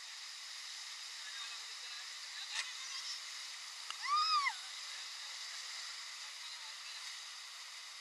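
Steady rush of whitewater rapids around the raft, with a short splash or knock about two and a half seconds in. About four seconds in, a rafter gives one short high-pitched squeal that rises and falls.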